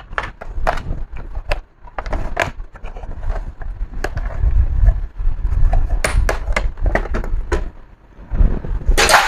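Irregular plastic clicks, snaps and knocks as the bottom cover of an HP 250 G5 laptop is pried off its case, with handling rumble throughout and a loud scraping burst near the end.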